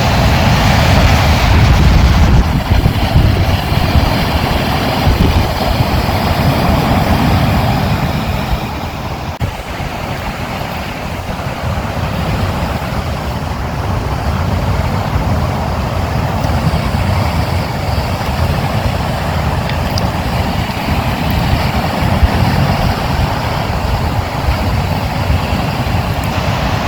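Ocean surf: waves breaking and washing onto a beach, a continuous rushing noise with a deep low rumble that swells and eases, loudest in the first several seconds and dipping about ten seconds in.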